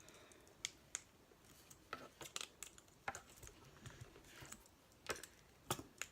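Faint, scattered clicks and taps of a fidget spinner being handled while someone twists and works at its centre caps to see if they unscrew.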